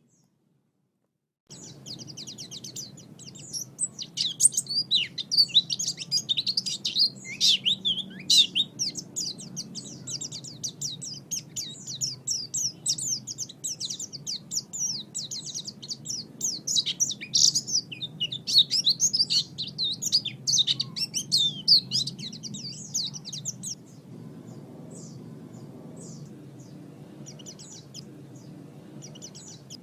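White-eye (pleci) singing: a fast, continuous twittering song of high chirps and trills. It starts about a second and a half in after a brief silence and thins to scattered chirps over the last few seconds. A steady low hum of recording noise runs underneath.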